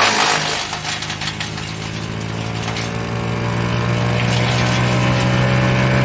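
Barreto 3107C gas wood chipper running, with the rush of chips blowing out of the discharge chute dying away in the first second. The engine then runs on steady and slowly picks up speed as the chipping load comes off.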